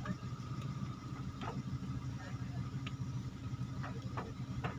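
Steady low engine hum, like a motor idling, with a few short faint clicks scattered through it.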